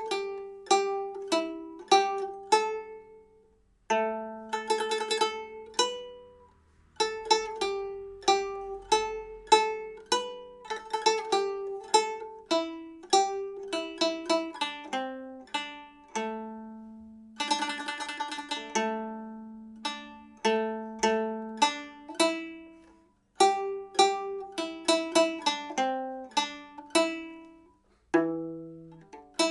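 A nanguan pipa with nylon strings and cattle-bone frets is played solo. Single plucked notes ring and fade in short phrases, with a brief burst of rapid repeated strokes about five seconds in and another about eighteen seconds in. The instrument is being test-played after its frets were reset and it was retuned.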